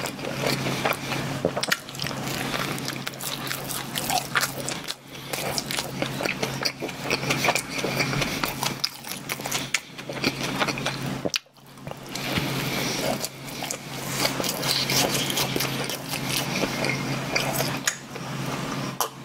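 Close-miked mouth sounds of a person biting and chewing soft bread, a dense run of small wet clicks, with a brief pause about eleven seconds in.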